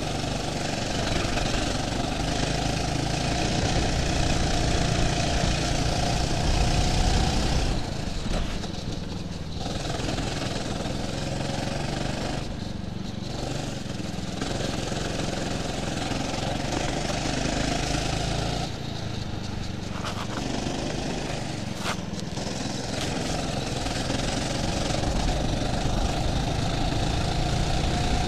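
Small go-kart engine heard from the driver's seat, running hard with its pitch slowly rising on the straights and dropping off a few times as the throttle is lifted for corners.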